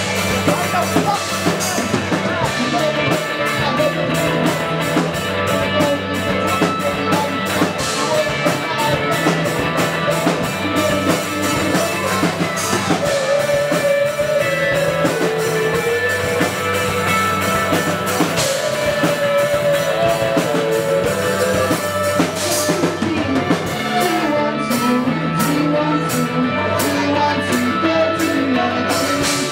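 Indie rock band playing live: electric guitars and bass over a steady drum-kit beat.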